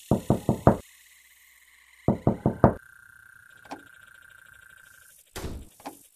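Knuckles knocking on a wooden wall: two sets of four quick raps about two seconds apart, then a duller thump near the end.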